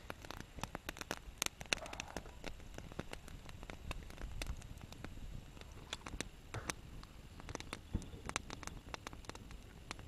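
Wood campfire crackling, with irregular sharp snaps and pops.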